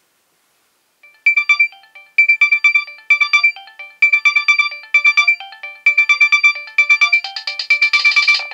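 Nokia 6820a ringtone playing: a bright synthesized melody of quick notes in short repeating phrases. It starts about a second in after silence and grows busier near the end.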